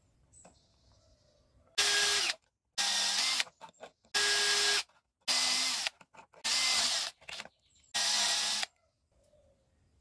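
Cordless drill with a small twist bit running in six short bursts, each about two-thirds of a second, drilling holes through the aluminium of a can-built motor housing.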